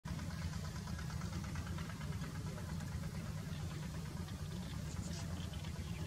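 A steady low rumble, like an engine idling, with faint, rapid high chirping above it.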